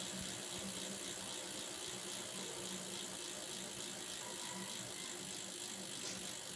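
Rear wheel of a Cannondale aluminium touring bicycle spinning freely while the pedals stay still, its freehub pawls ticking in a fast, steady run.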